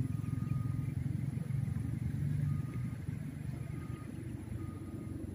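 Motor vehicle engine running, a low rumble that eases off after about three seconds. Faint short high tones recur a few times behind it.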